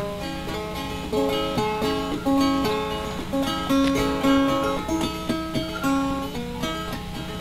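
Background music: acoustic guitar playing a plucked and strummed melody.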